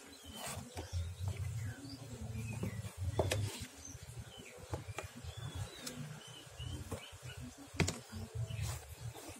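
Hand-stitching a shoe sole: a handful of sharp clicks and a dull on-and-off rumble from the hands, needle and thread working the sole close to the microphone, the loudest clicks about three seconds in and near the end. Small birds chirp faintly in the background.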